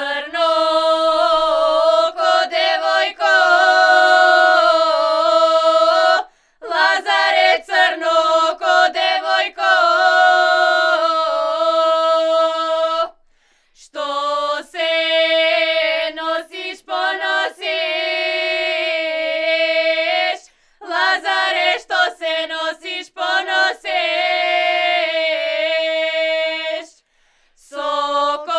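Young women singing a lazarki ritual song for Lazarus Saturday together, unaccompanied, in long phrases broken by short pauses for breath about every seven seconds.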